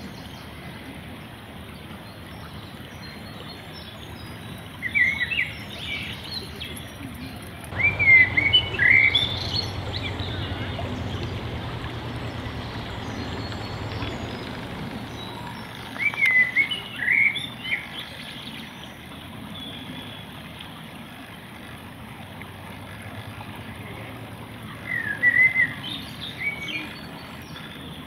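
A small songbird singing short bursts of quick, high chirping notes, four times, several seconds apart, over a steady background hiss.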